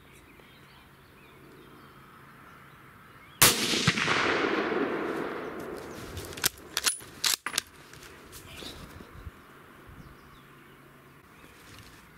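A single hunting rifle shot at a roebuck, about a third of the way in. The report rolls and echoes away over about three seconds. A few sharp clicks follow some three seconds later.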